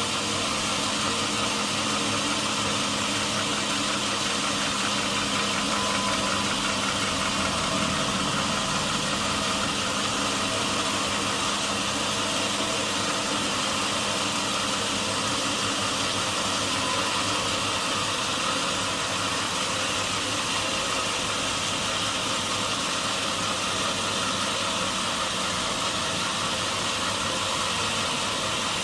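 Sawmill engine running steadily at an even speed, a constant hum under a noisy whirr.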